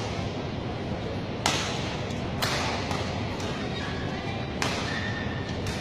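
Badminton rackets striking a shuttlecock in a rally: three sharp hits, about a second and then two seconds apart, ringing briefly in the hall. Near the end come a couple of short, high squeaks of court shoes on the mat.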